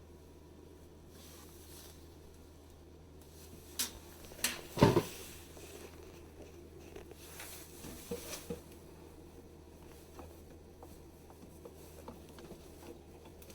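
Handling noises while working on a dishwasher: a few light clicks, one louder knock about five seconds in, then scattered small clicks over a low steady hum.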